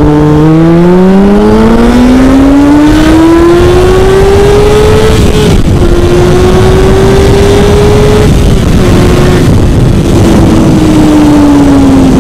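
Motorcycle engine under the rider, accelerating with its note rising for about five seconds. The note dips briefly twice, then falls slowly near the end as the throttle eases off, over a steady rush of wind.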